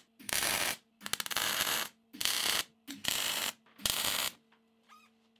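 MIG welder laying short tack welds to fix steel mounting tabs lightly in place: five brief bursts of arc, each under a second, with short gaps between, stopping about four seconds in.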